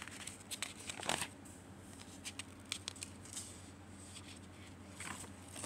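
Paper pages of a spiral-bound sketchbook being turned and handled: a few short rustles and crinkles, loudest about a second in, with more near the middle and the end.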